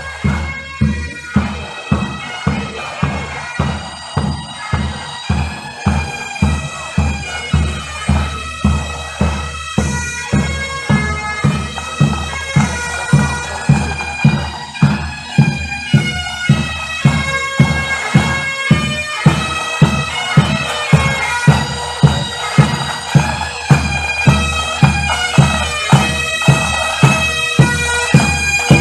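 Military pipes and drums playing a march: bagpipes with a steady marching drumbeat, growing louder as the band comes closer.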